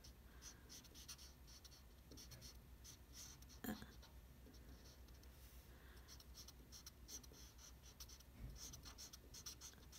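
Felt-tip marker rubbing faintly on paper in many short repeated strokes as an area is coloured in. One brief, slightly louder sound about three and a half seconds in.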